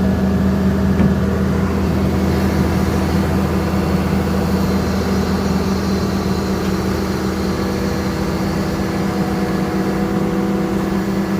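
Diesel engine of a Caterpillar earthmoving machine running steadily, close by, a constant hum that doesn't change pitch.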